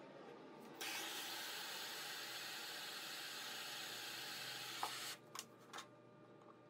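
Handheld butane gas torch burning with a steady hiss, starting suddenly and shut off about four seconds later; a few light clicks and taps follow.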